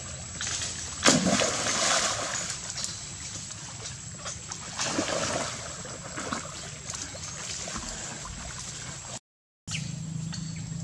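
Water splashing and sloshing as young monkeys swim and dive in a pond: a sharp splash about a second in, another about five seconds in, and a smaller one shortly after.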